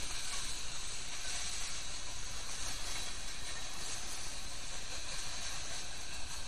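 Freight train cars rolling past: a steady rumble and hiss of steel wheels on the rails.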